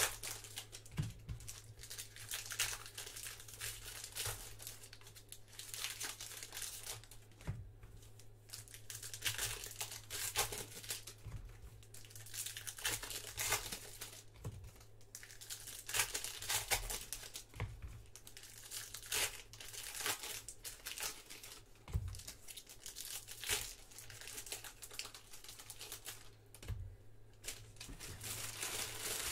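Foil wrappers of baseball card packs being torn open and crinkled by hand, in irregular bursts of crackling and tearing.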